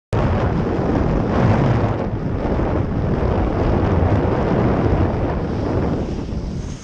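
Heavy wind buffeting the microphone of a kitesurfer's camera, mixed with water rushing under the kiteboard as it rides across choppy water. It starts abruptly and drops a little near the end.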